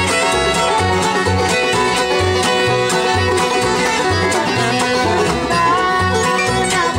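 Acoustic bluegrass band playing an instrumental break, the fiddle leading over mandolin, guitar and upright bass, the bass sounding a note about twice a second.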